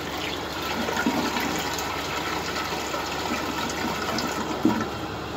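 Toilet flushing: a steady rush of water swirling through the bowl as it drains and refills. A short knock near the end.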